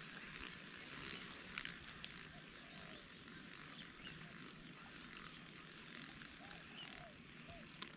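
Faint outdoor wetland ambience: a steady high-pitched insect drone, with a few short animal calls scattered through it.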